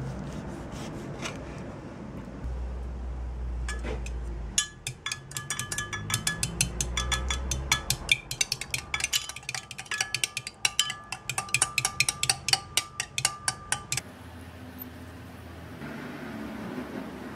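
A fork beating eggs in a glass measuring jug, clinking quickly against the glass several times a second for about ten seconds, then stopping abruptly. Before it, a few light knocks of a knife slicing tomatoes on a wooden board.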